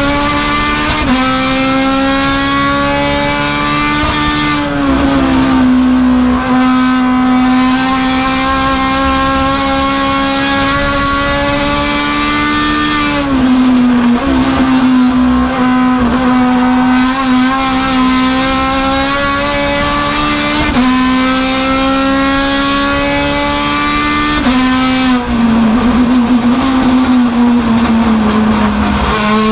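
Engine of a Chevrolet Cruze touring race car running hard at high revs, heard from inside the cockpit. Its note holds steady for stretches of several seconds, with a few short breaks and steps in pitch, over a constant hiss.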